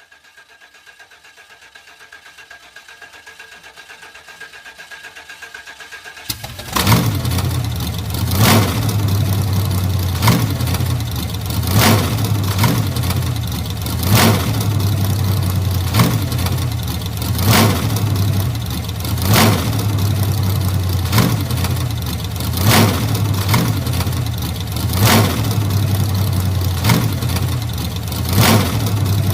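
Old 1940s car engine starting: a faint rhythmic cranking that slowly grows louder for about six seconds, then the engine catches abruptly and runs with a steady low hum, surging briefly about every one and a half to two seconds.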